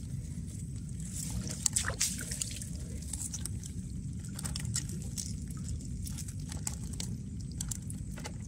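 Water dripping and splashing off a three-layer trammel net as it is hauled over the side of a small boat and shaken, with scattered clicks and knocks from the handling. A louder knock comes about two seconds in, over a steady low rumble.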